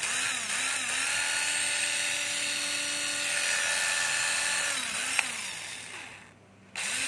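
Cordless drill motor run up and down a few times, then held at a steady speed. On release it winds down slowly rather than stopping short, which fits the seller's remark that the drill has lost its brake. It starts up again at the very end.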